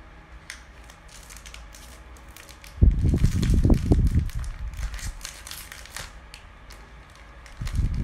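African grey parrot crunching and biting at a biscuit in its packet with its beak: scattered sharp cracks and clicks, with a loud spell of crunching about three seconds in and another right at the end.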